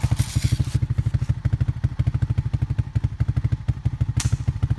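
A small engine running steadily with a fast, even, low pulse, and a single sharp crack about four seconds in.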